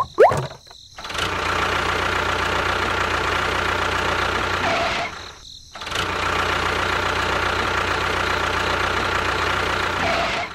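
Engine running steadily, with a gap of about a second near the middle before it runs on.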